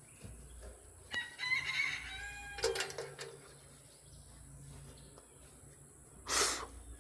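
A rooster crowing once, starting about a second in and lasting about two seconds. Near the end comes a short, loud burst of hiss-like noise.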